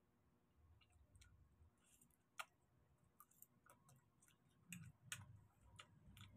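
Faint eating sounds close to the microphone: scattered small clicks and smacks of chewing and handling food, with one sharper click about two and a half seconds in and a few more around five seconds.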